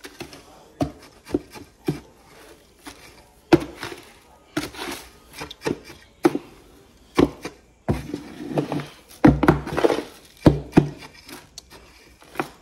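Fishing groundbait of crushed corn, oatmeal and chicken feed being stirred together with soil, giving a run of irregular knocks and scraping rustles that grow busier in the second half.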